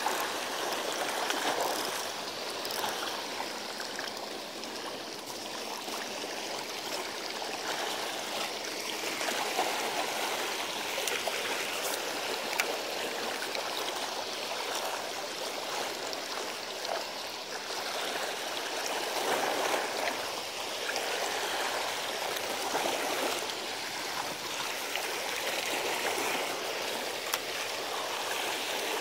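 Seawater washing against the rocks of a sea embankment: a steady rushing and splashing that swells and eases every several seconds.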